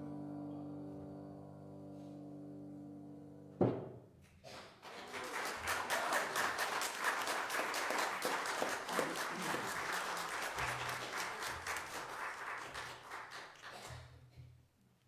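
A held keyboard chord dies away, a single thump comes about three and a half seconds in, and then a congregation applauds for about nine seconds before the clapping stops.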